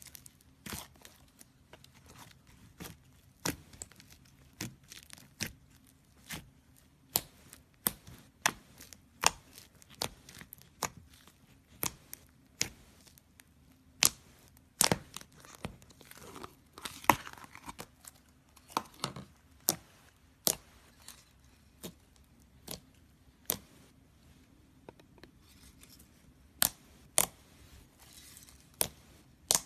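Fingers squishing and poking a bubbly slime in a plastic tub: sharp pops and crackles as trapped air pockets burst, coming irregularly about once or twice a second, with denser crackling about halfway through and again near the end.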